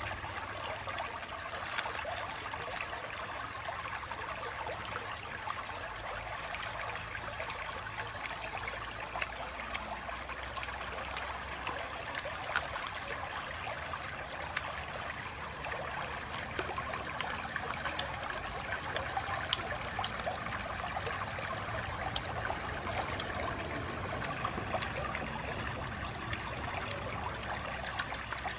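Shallow river running steadily over rocks.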